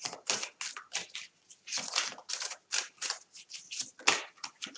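A deck of oracle cards being shuffled by hand: a quick, irregular run of short card flicks and clicks.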